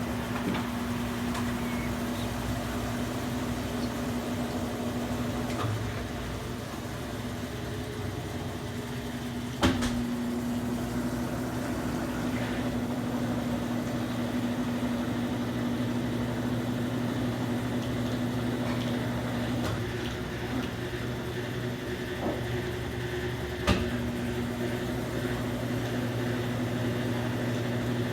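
Consul Facilite 10 kg (CWC10) top-loading washing machine in its spin cycle, the motor and drum running steadily at speed with a constant hum. Two single sharp knocks come about fourteen seconds apart.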